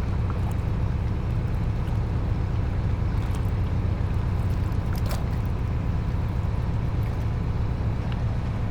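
Harbor ambience: a steady low rumble, with a few faint clicks and knocks over it, one clearer about five seconds in.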